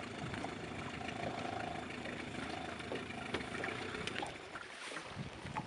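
Steady outdoor hiss of wind and water on a lake, with a faint whirr that comes and goes in the first half and a few light clicks.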